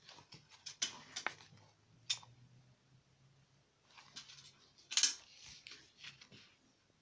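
Pages of a paper album photobook being handled and turned: short rustles and crackles of paper in a few clusters, the loudest about five seconds in.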